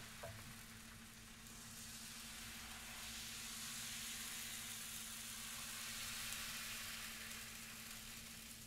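Faint, steady sizzle of thin crepe batter cooking on the hot non-stick plate of a Proctor Silex electric crepe maker while it is spread out with a T-shaped crepe spreader. Two light clicks come right at the start.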